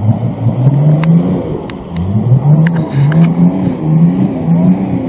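Off-road 4x4 SUV's engine revving hard in the mud, held steady at first, then surging up and down about twice a second as the driver works to get the stuck vehicle out of the rut. A few sharp knocks come through over it.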